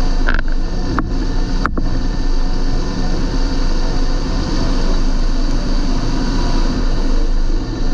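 John Deere 8320 tractor's six-cylinder diesel engine running steadily, with three short clicks in the first two seconds.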